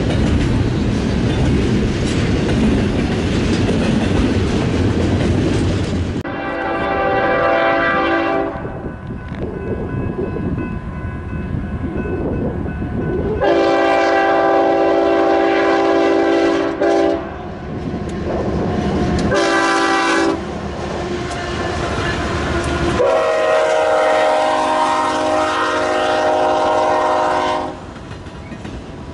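BNSF freight locomotive's multi-tone air horn sounding the grade-crossing signal: two long blasts, a short one, then a long one. Before the horn, the train's rolling noise and wind on the microphone.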